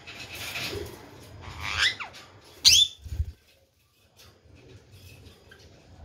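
Parakeet pecking at bread with a crackly crunching, then two rising squawks about two seconds in, the second one loud and shrill.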